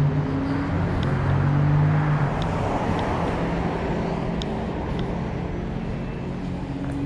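City street traffic: a steady low engine hum with a car passing, swelling and easing off about two to three seconds in.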